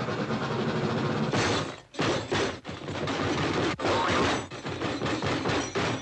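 Cartoon steam locomotive starting off: loud hissing steam, broken by a few short pauses, mixed with the clanking and banging of the carriages jolting into one another as the couplings jerk.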